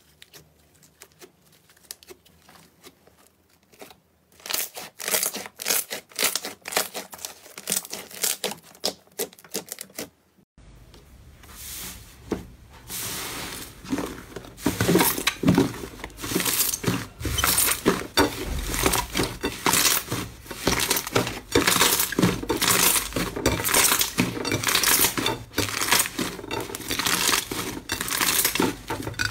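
Slime being squeezed and pressed by hand, giving dense crackling and popping. It starts faintly as scattered clicks, grows loud about four seconds in, breaks off abruptly at a clip change about ten seconds in, and comes back louder and denser a few seconds later.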